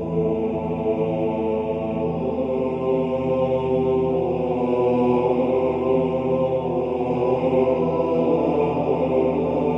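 Slow devotional background music: a chant-like drone of long, held notes.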